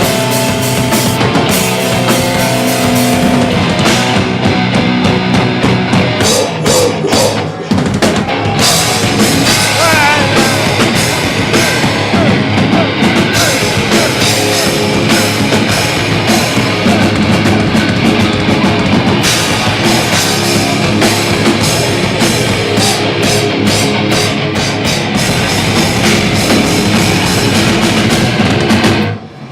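Live rock band playing an instrumental passage: a drum kit driving under guitars, loud and dense, with a brief drop just before the end.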